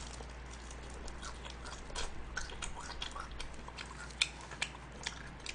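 Close-up chewing of a mouthful of salad leaves: many small, irregular crunches and wet mouth clicks.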